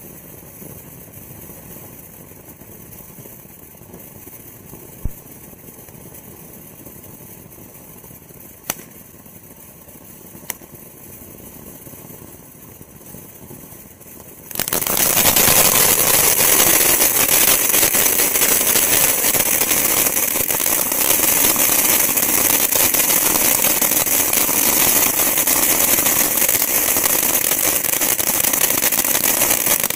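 Winda Firewheel Fountain ground firework spraying sparks with a steady hiss, broken by three sharp pops. About halfway through it turns much louder into a dense rush of sparks, and it stops near the end.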